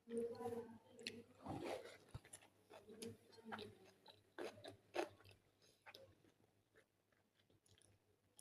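A person chewing a mouthful of rice close to the microphone: irregular wet mouth smacks and clicks.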